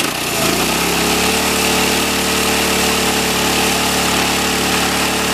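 Small single-cylinder go-kart engine run up to full throttle over about the first second, then held at steady high revs while the kart is held back and its rear tires spin on the pavement in a burnout.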